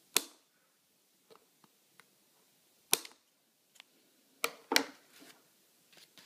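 Flush wire cutters snipping off the excess copper component leads on a soldered prototyping board: sharp clicks, one at the start, one about three seconds in, and two close together about a second and a half later, with a few faint ticks between.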